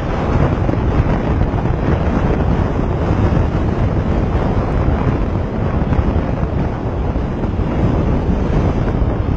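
Steady wind noise buffeting the microphone of a camera on a moving motorcycle at riding speed, with the motorcycle's running and road noise underneath.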